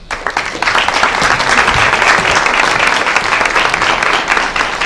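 Audience applauding, many hands clapping together. It breaks out suddenly and holds steady.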